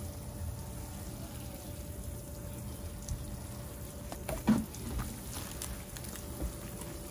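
Water sprinkling from a plastic watering can's rose onto wood-chip mulch, a steady soft patter. A brief louder sound cuts in about four and a half seconds in.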